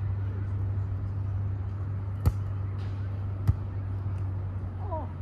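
Two sharp slaps of hands and forearms striking a volleyball in play, a little over a second apart, over a steady low rumble. A voice is heard briefly near the end.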